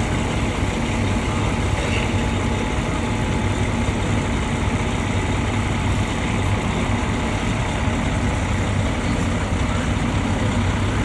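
Fire truck engine idling, a steady low drone.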